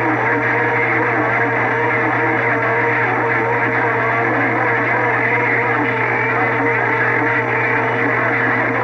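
Several CB radio stations keyed up together on one channel, heard through the receiver's speaker: a steady, dense jumble of overlapping transmissions with constant heterodyne whistles and a low hum, none of them coming through clearly.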